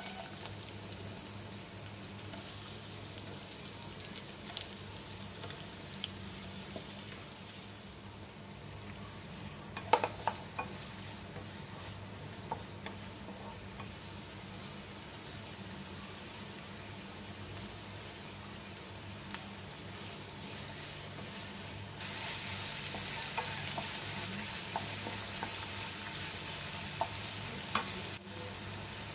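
Sliced onions sizzling in hot oil in a non-stick pan, stirred with a wooden spatula that knocks and scrapes against the pan now and then. The loudest knock comes about a third of the way in, and the sizzle grows louder about three-quarters of the way through.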